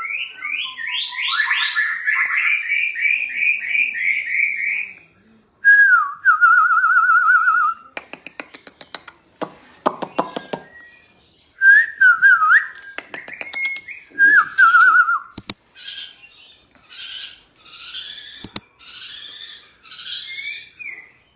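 White-rumped shama (murai batu) in full song: a varied string of phrases made of repeated whistled notes and quick warbling trills, broken by bursts of rapid clicks, with short pauses between phrases.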